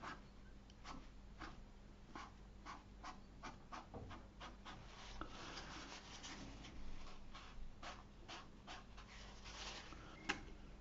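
Faint handling sounds: a paper tissue dabbed and rubbed on watercolour paper to lift out wet paint, giving soft irregular scratches and light ticks, with one sharper click near the end.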